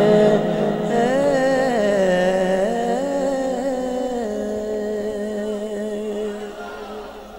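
A man singing a naat solo into a microphone, drawing out the end of the line in a wavering, ornamented run of notes, then holding one long steady note that fades out near the end.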